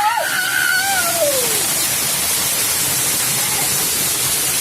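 Steady rush of a waterfall, an even noise without any let-up. Over it a voice calls out briefly during the first second and a half.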